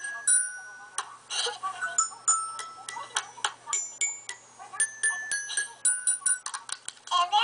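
Toy xylophone with colored metal bars struck one note at a time with a plastic mallet, in an irregular string of single notes that ring briefly. A few dry clicks with no note come near the end.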